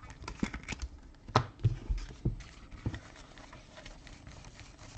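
Trading cards being handled and flipped through on a table: a run of light clicks and taps, busiest in the first three seconds, then fainter.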